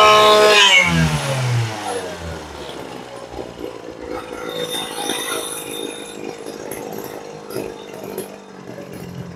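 Kawasaki TG two-stroke brush-cutter engine: revving high, then the throttle drops and the revs fall steeply within the first second to a rough, uneven idle. The engine cuts out at the very end. It is an engine the seller says doesn't run well.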